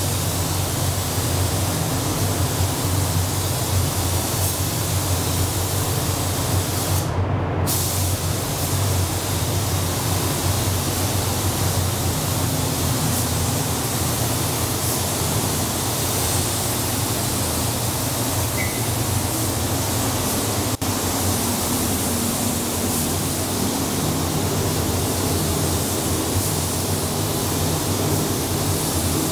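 Steady air hiss of a gravity-feed spray gun laying down paint, over the constant low hum of the paint booth's ventilation fans. The hiss drops out once, briefly.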